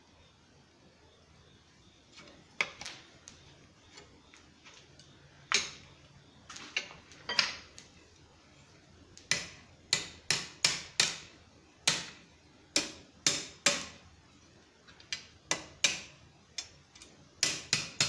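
A pair of steel blacksmith's tongs used as a hammer, striking a red-hot Turk's head knot of quarter-inch steel rod clamped in a vise: sharp metal-on-metal taps, each with a brief ring. The strikes start a couple of seconds in, scattered at first, then come faster, with a quick run of taps near the end.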